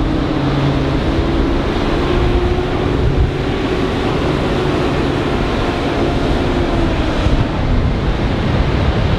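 Propeller aerobatic plane's engine droning overhead, its pitch sagging slightly in the later part, under heavy wind noise on the microphone.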